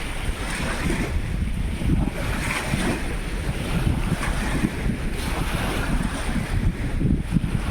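Sea surf washing onto the beach in repeated hissing swells, with strong wind buffeting the microphone.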